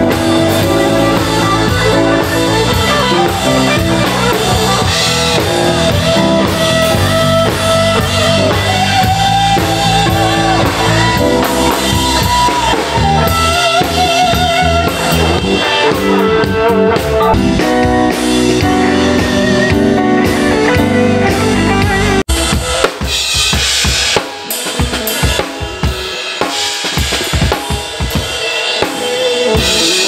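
Electric guitars, bass guitar and a drum kit playing a song together at a stage sound check. About 22 seconds in this cuts off, and a drum kit is heard alone, struck in separate hits on the bass drum, snare and cymbals as it is checked.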